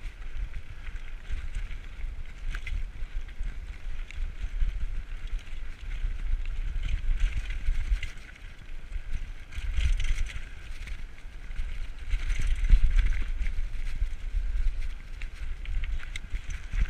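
Wind buffeting the helmet camera as a Diamondback Recoil 29er mountain bike rolls fast down a dirt singletrack, with the rush of tyres on dirt and the bike rattling and clicking over bumps. The noise swells louder twice in the second half.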